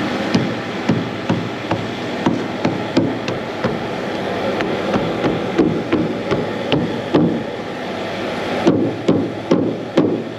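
Rubber mallet tapping a rubber edge trim down onto the rim of a painted steel excavator panel: a steady run of dull knocks, about two to three a second, over a steady background noise.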